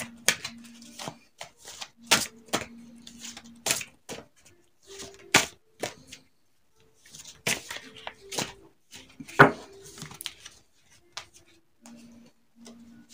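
A deck of cards being shuffled and handled on a table: an irregular series of sharp card snaps and taps, the loudest about nine and a half seconds in.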